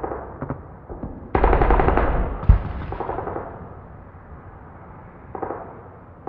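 Bursts of automatic gunfire. One rapid burst runs for about a second, a loud single bang follows, and a shorter burst comes near the end.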